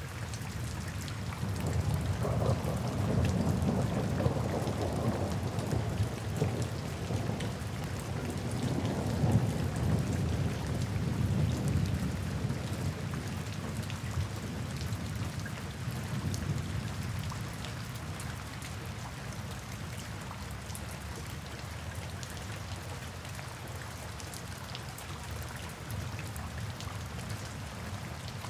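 Steady rain falling, with a long roll of thunder that swells about two seconds in, rumbles for several seconds and fades out over the next few seconds, leaving the rain alone.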